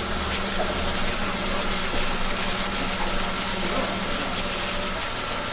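Steady mechanical hum over a constant hiss; one of the hum's tones drops out near the end.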